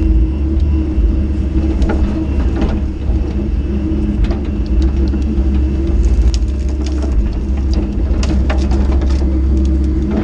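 Small excavator's diesel engine running steadily under load, with scattered sharp cracks and snaps as brush and debris are crushed.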